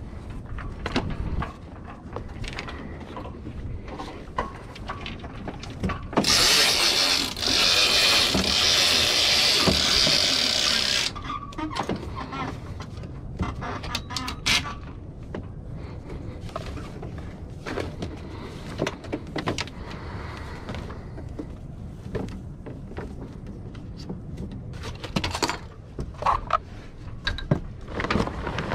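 Sailcloth and rigging being handled on a small trailered sailboat: rustling and scattered light clicks and knocks over a steady low rumble. A loud hiss runs for about five seconds starting about six seconds in.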